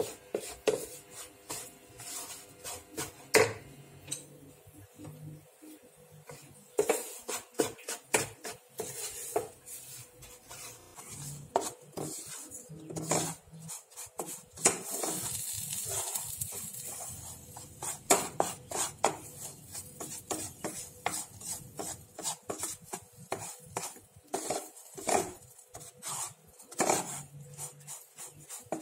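Wooden spatula stirring and scraping dry crumbs around a non-stick pan: an irregular run of short scrapes and light knocks against the pan, with one longer continuous scrape about halfway through.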